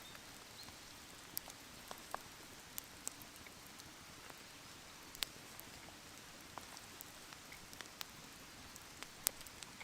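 Meltwater from thawing snow dripping from the trees: irregular, scattered sharp drops, a few a second, over a faint steady hiss.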